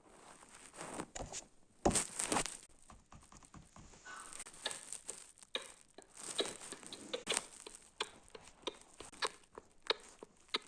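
Irregular rustling and crinkling with many small taps and clicks; no engine is heard.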